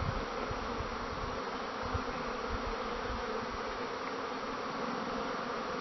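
Many honeybees buzzing steadily around an open hive being worked.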